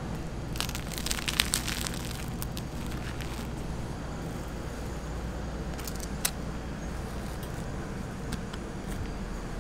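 Spatula scraping and clicking against a steel tray while scooping cream and spreading it on a waffle, busiest during the first few seconds with one sharp click later. A steady low hum lies underneath.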